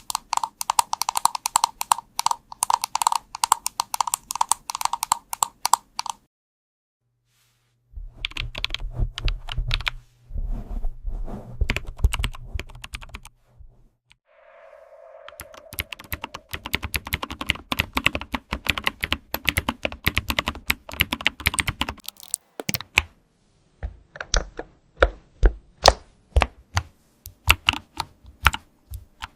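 Typing on a computer keyboard: fast runs of sharp key clicks, broken by a pause of about two seconds a quarter of the way in, then slower, separate keystrokes near the end. The character of the keys changes between runs, some with a clear click and some with deeper thuds.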